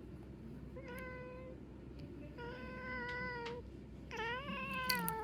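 Domestic cat meowing: three drawn-out meows, the last one the longest, rising at its start and then sliding down in pitch.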